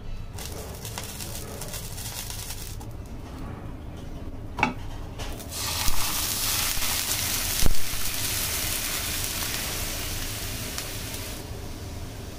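A bread slice frying in a nonstick pan with a steady, light sizzle, and a silicone spatula knocking on the pan about four and a half seconds in. From about halfway, milk poured into the hot pan sets off a much louder hissing sizzle, with a couple of knocks, which drops back near the end.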